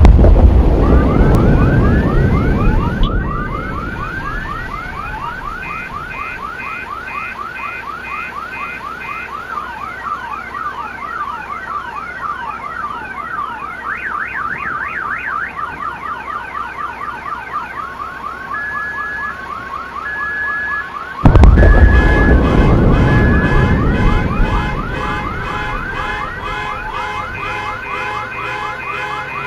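A sudden loud boom with a deep rumble that dies away over a few seconds, setting off car alarms that wail in fast repeated rising sweeps with beeping. About twenty seconds in, a second boom hits and more alarms sound.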